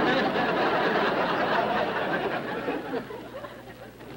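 Studio audience laughing, the laughter fading out about three seconds in.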